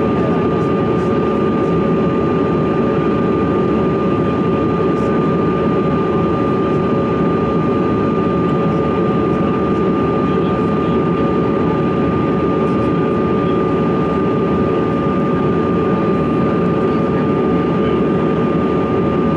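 Steady cabin noise of a Bombardier CRJ-200 regional jet in flight: a loud, even rush of airflow and engine noise from its rear-mounted GE CF34 turbofans, with a steady high whine.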